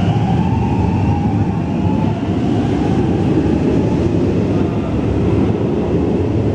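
Helsinki Metro M100-series train pulling out of an underground station: a steady, loud rumble of wheels and motors, with a faint whine in the first second or two.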